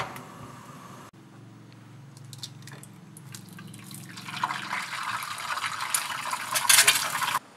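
Egg frying in oil in a pan: a crackling sizzle that grows louder from about four seconds in, then cuts off suddenly near the end.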